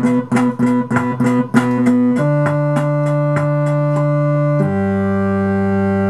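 Live band music: quick repeated chord strokes for about two seconds, then two long held chords, the second one lower, closing out a song.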